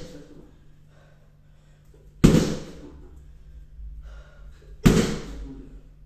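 Bare-foot kicks smacking into a padded Blitz kick shield held by a partner. There are two sharp hits, about two seconds in and again two and a half seconds later, each dying away quickly. An earlier hit fades out at the start.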